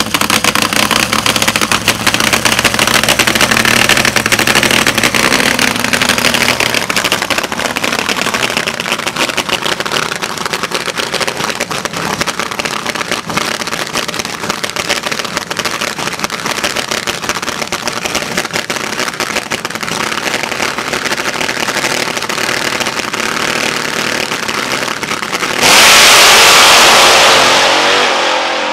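Fuel-injected fuel altered drag car's engine running with a rough, crackling note, then suddenly opening to full throttle about 26 seconds in as it launches, the blast fading quickly as the car pulls away.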